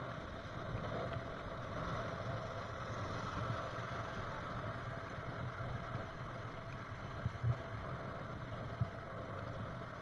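Fast river water rushing and splashing around an inflatable raft as its crew paddles, a steady noisy wash. Three short knocks stand out in the second half.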